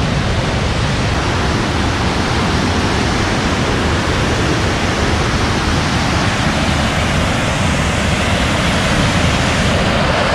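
Waterfall at close range: a loud, steady rush of falling water.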